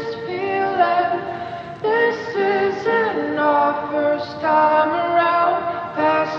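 Background pop song with a female voice singing held, gliding notes over layered vocal harmonies.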